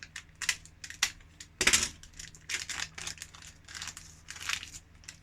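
Small plastic parts of a blood glucose testing kit being handled: an irregular run of clicks and rattles with some crinkling of packaging, and one louder clack a little under two seconds in.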